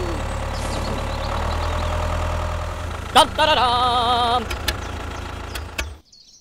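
Tractor engine idling with a steady low rumble, with a short warbling tone about three seconds in and a few clicks after it; the engine sound cuts off suddenly near the end.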